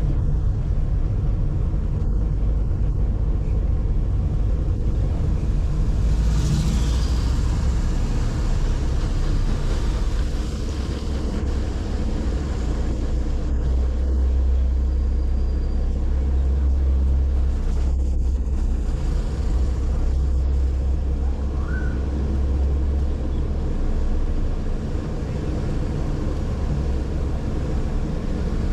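Car driving along town streets: a steady low rumble of engine and road noise, with a brief hissing swell about six seconds in.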